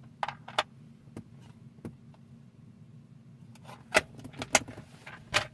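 Scattered clicks and taps of hard plastic parts as the climate control unit and console trim are handled and fitted back into the car's centre console. The three loudest come near the end.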